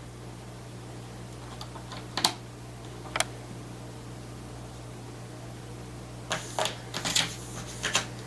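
Scattered sharp clicks and taps of hands working on a laptop, two single ones and then a quick run of several near the end, over a steady low hum.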